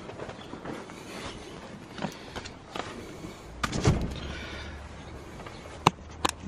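Handheld rustle and movement, with a dull wooden knock about four seconds in and two sharp clicks near the end, as of the greenhouse's wooden-framed door being pushed shut and latched.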